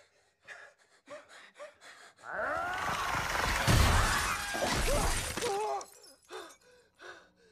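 Film sound effects of glass shattering. A few scattered ticks come first, then a loud crash of breaking glass lasts about three seconds, with shrill sliding cries over it, and it dies away in short fading bits.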